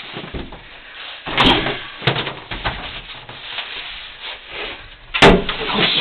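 Handling noises from people working at the tub: short rustles and knocks, then a loud sudden knock about five seconds in.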